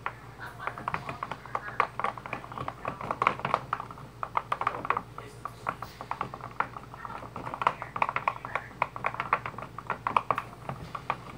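A wooden craft stick stirring a thick mix of glue and shaving cream in a plastic tub, making a steady run of quick small sticky clicks and squelches. A low steady hum runs underneath.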